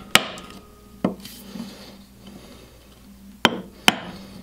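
Wood chisel driven by a mallet, chopping dovetail waste in softwood: four sharp knocks, one at the start, one about a second in, and two in quick succession near the end.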